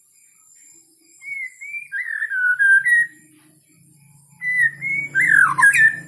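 White-rumped shama whistling two short phrases of slurred, gliding notes, the first about a second in and the second just after the four-second mark. A faint steady high-pitched whine runs underneath.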